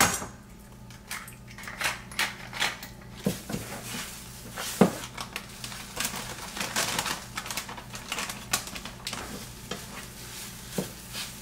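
Eggs sizzling in a nonstick frying pan while a slotted spatula stirs and scrapes them, with scattered clicks and taps of the utensil against the pan.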